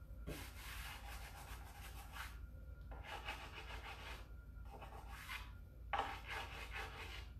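Fingertips rubbing a decor transfer down onto a deeply grooved, distressed wooden sign, pressing it into contact and feeling for air bubbles. Three dry rubbing passes, each a second or two long.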